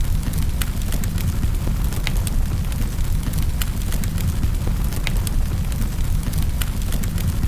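Wood fire in a fireplace crackling, with frequent sharp pops and snaps over a steady low rumble of the flames.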